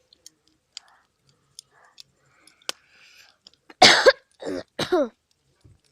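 A person coughing three times in quick succession, the last cough voiced and falling in pitch, after a few faint scattered clicks and crackles.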